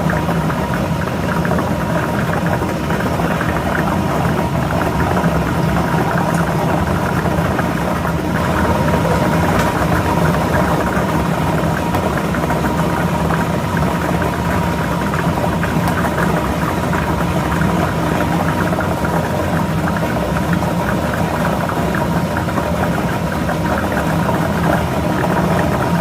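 Lottery ball drawing machine running: a steady blower motor hum with the plastic balls rattling and clattering as they tumble.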